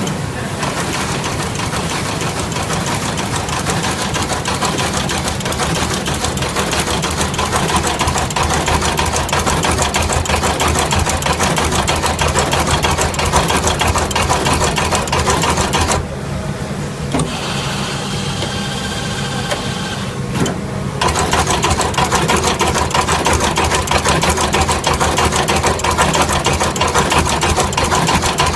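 Radial-lead component auto-insertion machine running, its insertion head making a rapid, steady mechanical clatter as it fits parts into a printed circuit board. For a few seconds past the middle the clatter thins and a few steady tones show, then it picks up again.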